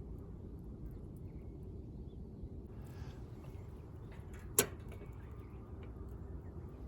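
Faint bird chirps over a steady low rumble, with one sharp click about four and a half seconds in.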